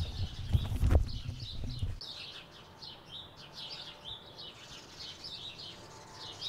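Small birds chirping over and over in quick, short, high calls. In the first two seconds there is a low rumble with two dull thumps, one just in and one about a second in.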